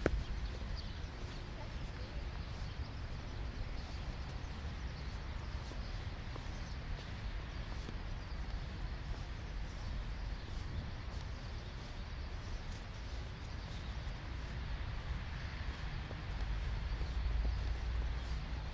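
Blizzard wind buffeting the microphone over a steady snowy-street ambience, with a stronger gust near the end.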